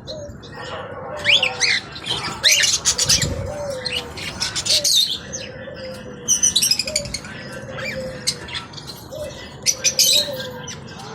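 Many caged birds chirping and squawking over one another, with a low cooing call repeating about once a second.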